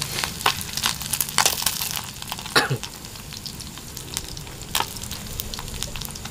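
Fish deep-frying in hot oil in a small pan over a wood fire: a steady sizzle broken by many sharp crackling pops of spattering oil, with the occasional scrape of a wooden stick stirring the pan.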